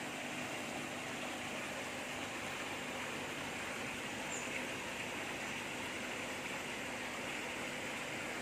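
Steady rush of running water at a koi pond, with a faint steady hum underneath.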